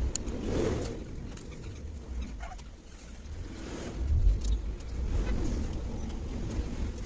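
Doves cooing, over a low uneven rumbling noise that is loudest about four seconds in.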